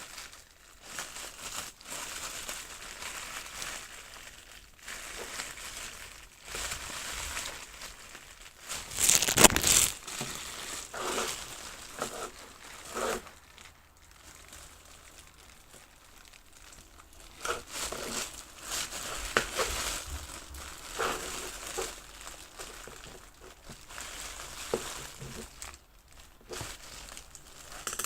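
Plastic packaging of a Popin' Cookin' DIY candy kit crinkling and rustling as it is handled, with scattered small clicks and one louder, longer crinkle about nine seconds in.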